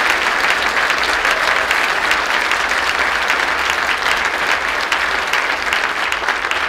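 Audience applauding: dense, steady clapping from many hands that eases slightly toward the end.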